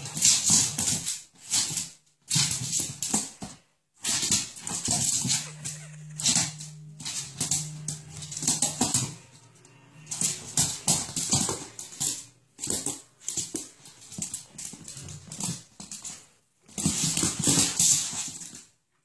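Two dogs play-fighting on a wooden floor: irregular bursts of dog vocalising and scuffling, with short pauses between bouts and a longer low, steady sound in the middle.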